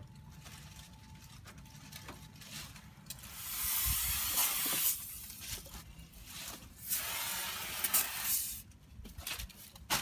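Spray adhesive hissing out in two long bursts, each about a second and a half, the first about three seconds in.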